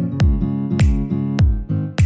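Background music with a steady beat, about one hit every 0.6 seconds. Each hit carries a deep bass note that slides down in pitch, over held chords.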